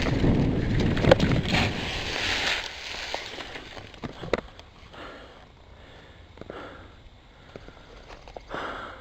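Mountain bike ridden on a dirt trail: wind rushing over the microphone, with tyre noise and clicks and rattles from the bike. After about two and a half seconds the rush drops away as the bike slows, leaving scattered clicks and a short breath from the rider near the end.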